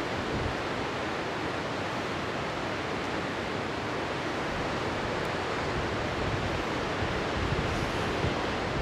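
Steady, even rushing of the young Rhone, a glacier-fed mountain river tumbling over rocks in a gorge.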